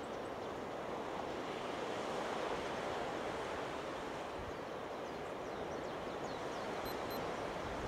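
Small waves washing onto a gravel beach, a steady surf hiss that swells slightly a couple of seconds in.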